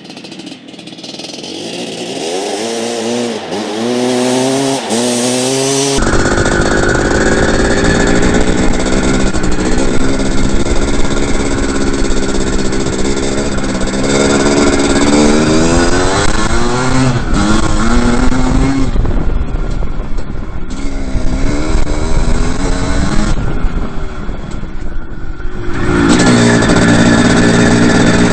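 Two-stroke dirt bike engine being ridden hard, the revs climbing and dropping again and again as it accelerates and shifts. The sound changes abruptly about six seconds in, from a quieter engine revving up to a louder, closer one.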